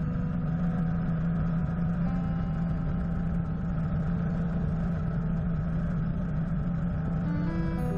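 Helicopter in flight: a steady, even drone of engine and rotor with wind noise. Faint sustained musical tones sit over it and change about two seconds in and again near the end.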